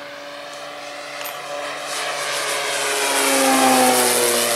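Radio-controlled scale Spitfire making a low flypast: the drone of its motor and propeller grows louder, peaks about three and a half seconds in, then drops in pitch as the plane goes past.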